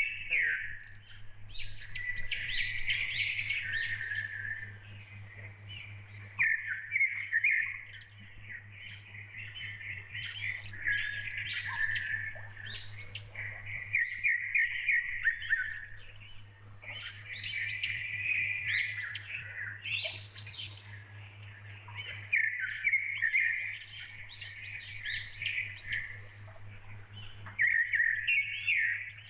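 Birds chirping and trilling in repeated phrases of a few seconds each, with short pauses between them, over a steady low hum.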